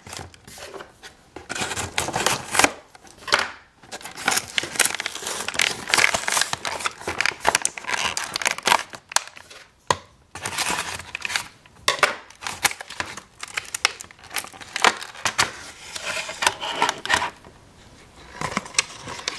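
Clear plastic blister pack being pried open and its cardboard backing torn away: irregular crinkling, crackling and tearing of plastic and card, easing off shortly before the end.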